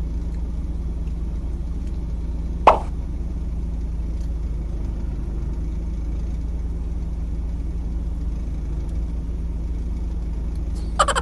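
Lorry engine idling with a steady low hum, heard inside the cab. A single sharp click about three seconds in, and a brief rattling burst near the end.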